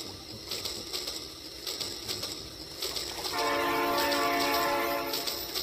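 Rail King toy train's horn sound effect, one steady note lasting about two seconds, beginning a little past the middle, over light clicking.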